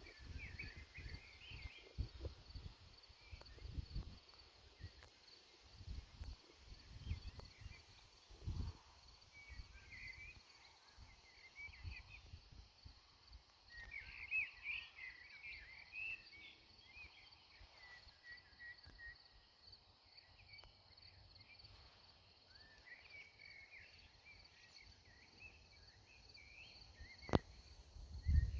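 Quiet outdoor ambience: a steady high insect trill with chirping at intervals, and low gusty thumps of wind on the microphone. There is a sharp click near the end. No drone motors are heard.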